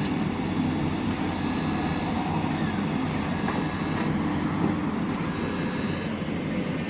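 JCB 3DX Plus backhoe loader's diesel engine running steadily, with a high-pitched warning buzzer sounding three times, each pulse about a second long and repeating about every two seconds.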